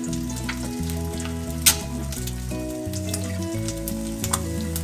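Eggs frying in a cast iron skillet: a steady sizzle with scattered sharp pops, the loudest about one and a half seconds in. Background music plays underneath.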